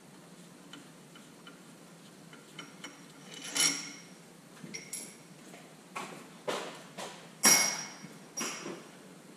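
Metal tools and parts clinking and clanking as they are handled and set down: a string of irregular knocks, some with a short metallic ring, the loudest about three and a half and seven and a half seconds in.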